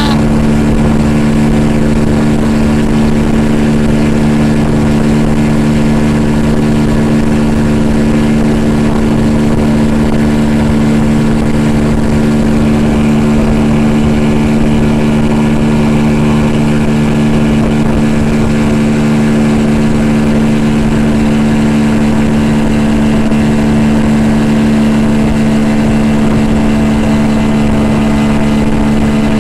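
40 hp Yamaha outboard motor running at a steady, unchanging pitch under load, towing a rider.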